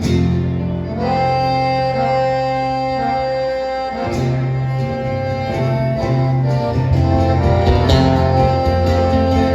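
Instrumental music without singing: a melody of long held notes over guitar and a bass line that changes notes every second or so.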